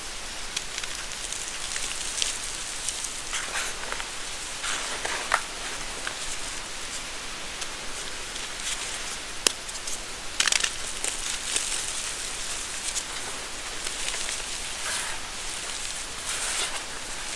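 Dried, reformed gym chalk crumbled and crushed between bare hands: a continuous gritty crumbling hiss full of small sharp crackles as chunks break apart, with louder bursts of crunching several times.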